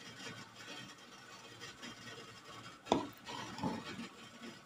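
Faint steady hiss of a steamer cooking a layer of rice-flour batter, with a single sharp click about three seconds in.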